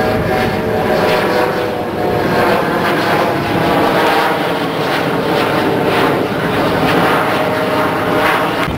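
A loud, steady engine drone mixed with a rushing noise that swells and fades every second or so.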